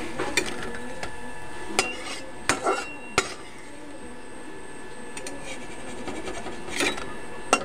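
Metal ladle clinking and scraping against a steel kadhai and plate as fried chana dal pakoras are scooped out of the oil and set down. There are several sharp clinks, bunched around two to three seconds in and again near the end, over a steady hiss.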